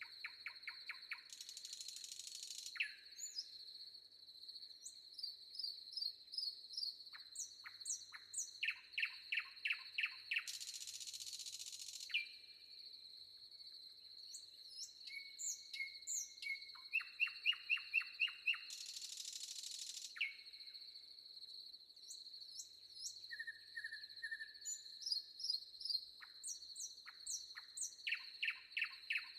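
Several songbirds singing in rapid trills and chirps over a steady high insect drone, with three brief hissing bursts spread through the stretch.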